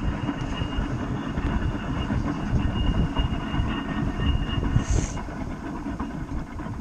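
Mountain coaster sled rolling along its steel rail track, the wheels rumbling and rattling, with a faint thin whine that comes and goes. A short hiss sounds about five seconds in.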